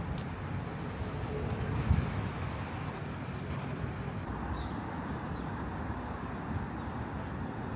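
Steady city street noise of distant traffic and general bustle, with a brief low thump about two seconds in.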